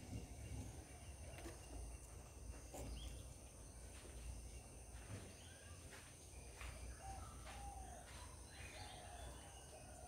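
Faint garden ambience: a steady high insect drone over a low rumble, with a few short bird chirps in the second half and scattered light clicks.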